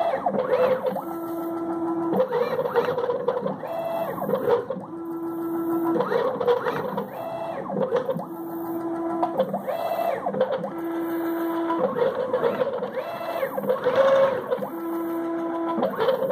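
Stepper motors of a homemade threaded-rod CNC pencil plotter whining as they move the pencil through a drawing. The whine is a series of steady tones that switch pitch every second or so, in a pattern that repeats every couple of seconds.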